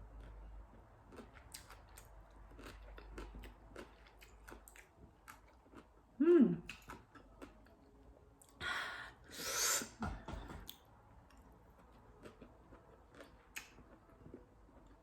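Chewing of green mango, wet mouth sounds with many small clicks. About six seconds in there is a brief falling vocal 'mm', and near ten seconds two loud breathy bursts like sniffs or exhales.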